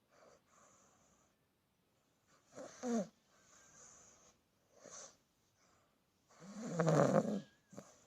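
Aussie bulldog cross puppy snoring in its sleep: uneven, rasping breaths, one stronger with a falling pitch about three seconds in and the loudest and longest near the end.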